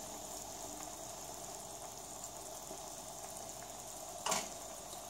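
Cream sauce with chanterelle mushrooms simmering in a frying pan, a faint steady bubbling sizzle. A short louder noise comes near the end.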